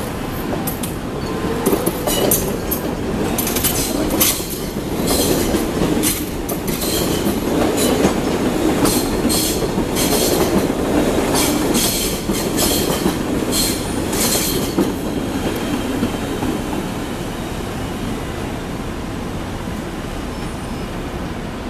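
MTR M-Train electric multiple unit pulling out over the rails, its running rumble broken by a rapid series of wheel clacks over rail joints and points. The clacking stops about fifteen seconds in, and a steadier, quieter rumble remains.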